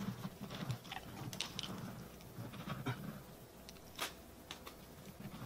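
Husky sniffing and chewing at a cut-open pumpkin and its scattered seeds: faint, irregular clicks and crunches.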